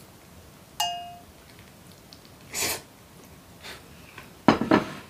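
A man slurping yakisoba noodles from a bowl with chopsticks: a short slurp, then louder slurping near the end. About a second in there is a single ringing clink.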